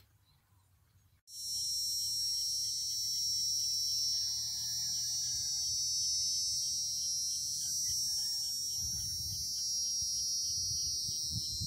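Steady high-pitched insect buzzing that starts abruptly about a second in, with wind rumbling on the microphone near the end.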